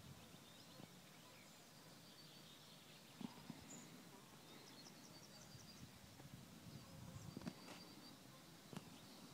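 Near silence: faint outdoor ambience with distant birds chirping now and then, and a couple of soft clicks.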